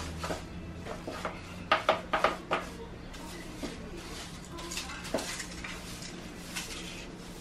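A wet broom sweeping a ceramic-tiled floor: bristles scraping with a series of knocks and taps, the busiest cluster about two seconds in, over a steady low hum.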